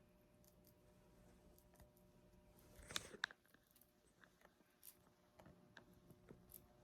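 Near silence: faint room tone with a few scattered soft clicks, the loudest a quick pair about three seconds in.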